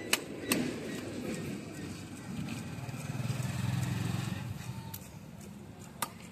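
Sharp knocks of a wooden club striking rohu fish pressed against an upright fixed cutting blade, twice at the start and once near the end. In between, a low engine hum from a passing vehicle swells and fades.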